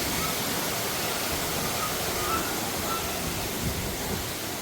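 Steady rushing hiss like falling water, with a few faint short high peeps scattered through it.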